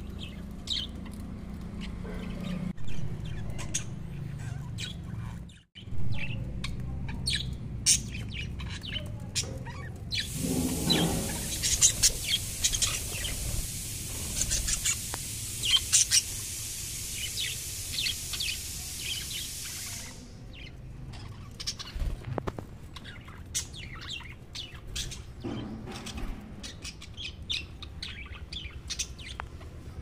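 A flock of budgerigars chirping and chattering, many short high chirps overlapping. A steady hiss sits under the chirps for about ten seconds in the middle.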